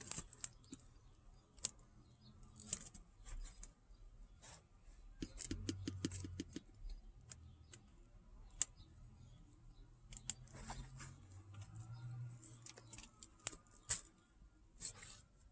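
Faint handling noise from a small bottle of UV windshield-repair resin being worked against the glass: scattered light clicks and taps, with a quick run of clicks about five seconds in, over a faint low hum.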